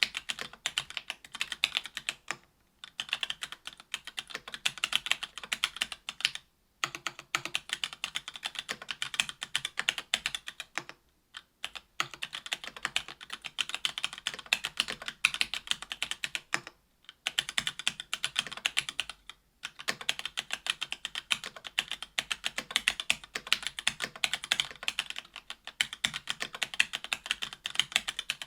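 Mechanical keyboard typing on stock Gateron Clear linear switches (40 g) in an AL.BOK keyboard with an aluminium plate and GMK doubleshot ABS keycaps. It is a rapid run of keystroke clicks, broken by short pauses every few seconds.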